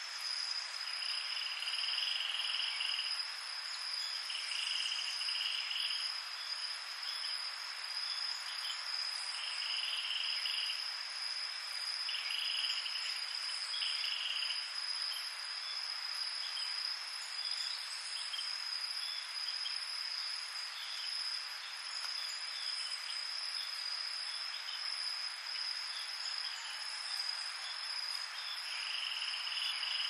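Night insect chorus of tropical crickets: one steady, high, unbroken trill, with shorter, lower calls about a second long coming and going every few seconds, most of them in the first half.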